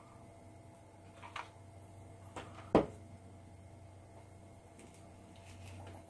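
Quiet hand-handling sounds while crafting: faint rustles and light taps, with one sharp knock a little before the middle, over a low steady hum.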